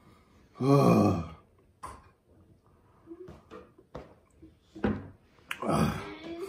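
A man groaning loudly about half a second in, then sighing and breathing hard, with a louder breathy groan near the end: the sounds of someone suffering the burn of an extremely hot chili gummy bear.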